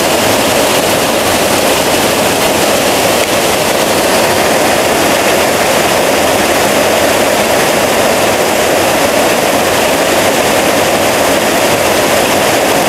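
Heavy rain pouring down, a loud, steady hiss without a break.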